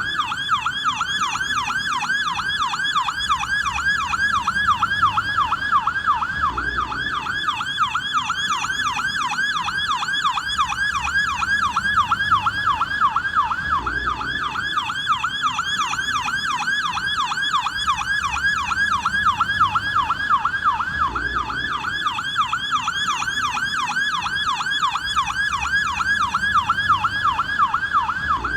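Electronic police siren in yelp mode: a continuous, rapid wail sweeping up and down in pitch about three times a second.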